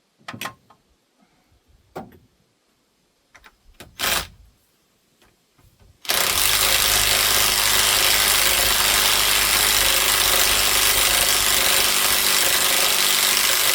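A few light clinks of tools on metal, then, about six seconds in, a motor starts abruptly and runs loud and steady for about eight seconds, with a low hum under a broad whirring hiss.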